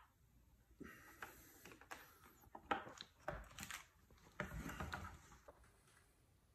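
Faint scraping, clicks and light knocks of a five-gallon plastic bucket and its wire handle being handled while thick white epoxy is poured out of it and scraped from it.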